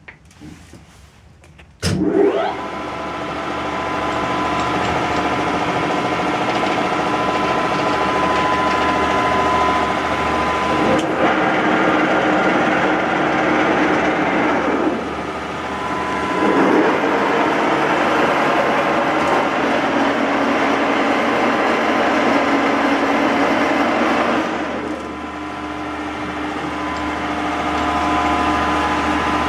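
1K62 screw-cutting lathe starting up: about two seconds in the machine comes on with a short rising whine, then runs steadily with a geared whine and hum. The sound shifts and briefly drops twice, near the middle and again late on, before it settles.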